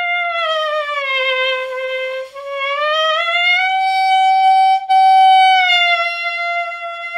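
Clarinet mouthpiece and reed blown on their own, without the rest of the instrument: one long reedy tone. It bends down in pitch over the first two seconds, climbs above where it started around the middle, where it is loudest, then eases back. The pitch changes come from the player's throat and the direction of his air.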